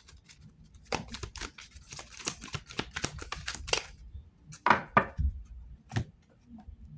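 A deck of oracle cards being shuffled by hand: a run of quick, sharp card snaps and slides, loudest a little under five seconds in.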